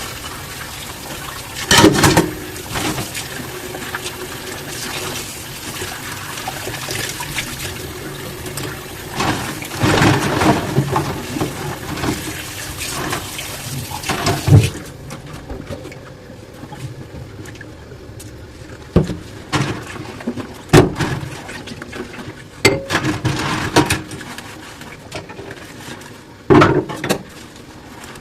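Kitchen tap running into a sink full of dishes, with knocks of dishes being handled under the stream. The water shuts off about halfway through, leaving scattered clinks and knocks of dishes.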